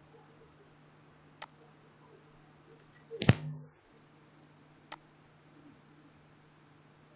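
Two short computer-mouse clicks, about a second and a half in and just before five seconds, with a louder knock a little past three seconds, over a low steady hum.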